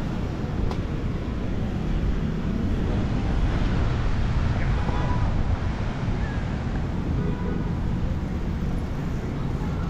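City street ambience: traffic noise with wind rumbling on the microphone.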